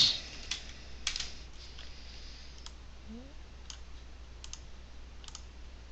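A few scattered clicks from a computer keyboard and mouse, spaced out with gaps between them, over a low steady hum.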